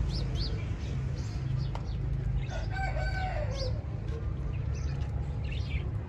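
A rooster crows once, a pitched call of about a second that drops at the end, about halfway through. Short high bird chirps come and go, over a steady low hum.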